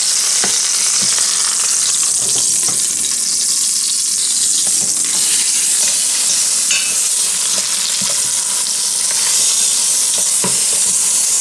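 Leg of goat searing in hot olive oil in an Instant Pot's stainless steel inner pot on sauté: a steady sizzle, with a couple of light clicks about half a second in and near the end.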